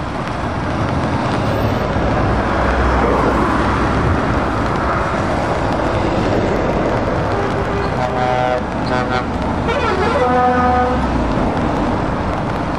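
Heavy trucks driving past in convoy on a wet road: diesel engines and tyre hiss. About eight seconds in, a truck horn sounds twice in two steady blasts of a second or more each.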